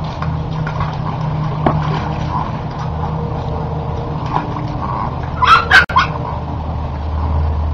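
A dog giving a few short, high-pitched cries about five and a half seconds in, over a steady low hum.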